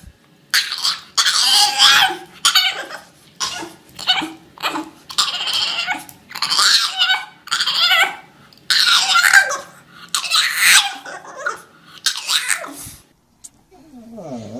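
A person laughing hard in a long run of breathy bursts, which stops about a second before the end. Near the end a dog's wavering whine begins.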